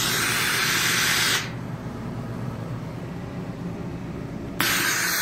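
Polti Cimex Eradicator's nozzle hissing as superheated dry steam is sprayed. The hiss cuts off about a second and a half in and starts again suddenly near the end. A low steady hum continues underneath.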